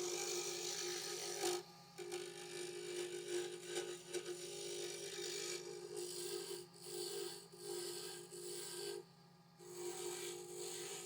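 Willow pen blank being worked on a wood lathe: a steady hum with a hissing scrape of wood being worked as it spins, breaking off briefly a few times, most clearly about one and a half seconds in and about nine seconds in.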